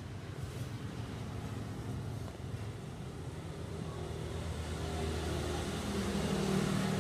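Low rumble of a motor vehicle's engine running, growing louder toward the end.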